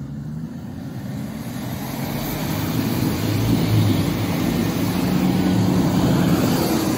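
Toyota Land Cruiser 100's 4.2-litre diesel engine running hard under load while its tyres spin in deep snow, with a hiss of snow thrown off the wheels; the vehicle is stuck and digging in. The sound grows steadily louder.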